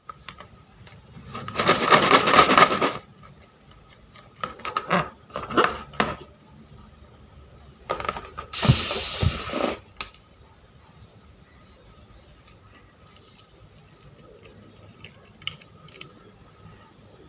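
Crunchy slime being squeezed and worked by hand, crackling and clicking in three bursts over the first ten seconds, then only faint handling sounds.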